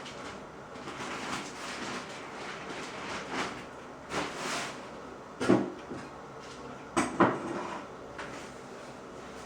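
A gerbil drumming its hind feet: short bursts of rapid thumping on the cage floor, the loudest about halfway through and a pair of bursts a second and a half later.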